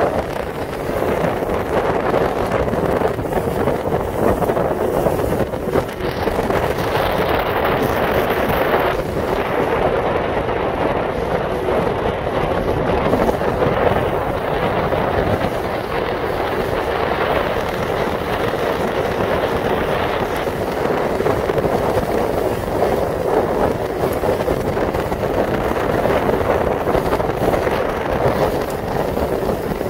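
Steady rush of wind buffeting the microphone and water noise from a small fishing boat running at speed over open water.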